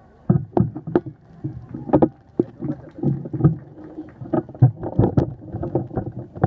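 Aerial fireworks exploding in a rapid, irregular barrage of booms and cracks, a few bursts a second, starting about a third of a second in.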